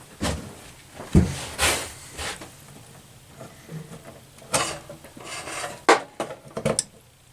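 Handling noise on a workbench: a series of short, irregular scrapes and rubs with a few light knocks, as things are moved and set down.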